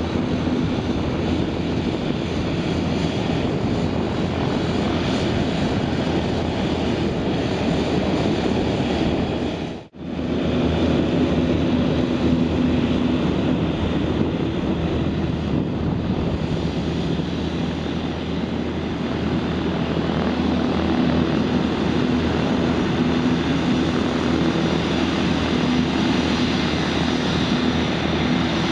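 Piaggio P.180 Avanti II's twin Pratt & Whitney PT6A turboprops running steadily at taxi power, their pusher propellers giving a steady low tone under the turbine noise. The sound drops out for an instant about ten seconds in.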